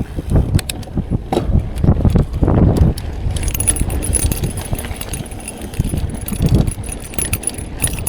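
Mountain bike rattling and clattering over rough trail, the chain and parts jangling with each bump, over a low rumble of wind on the microphone. About three seconds in the knocks thin out and a steadier high metallic jingle takes over.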